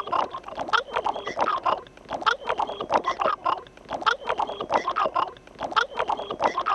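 Cartoon flying lemur's chattering, a rapid run of squeaky clicks and chirps, the same short stretch repeating every couple of seconds as a loop.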